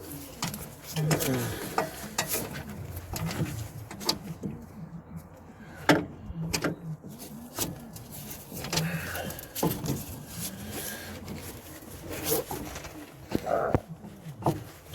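Hub mounting bolts being tightened with an E18 socket on a small breaker bar: scattered metal clicks and knocks of the socket and tool, with a few sharper knocks, the loudest about six seconds in.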